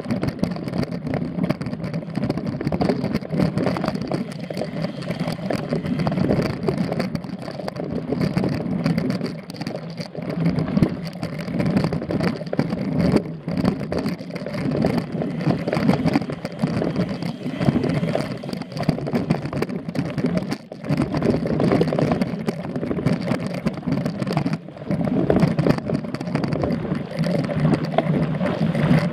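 Mountain bike ridden over a dirt forest singletrack, heard from a camera mounted on the bike: a steady rumbling noise that swells and dips, with frequent small knocks and rattles as the bike jolts over bumps.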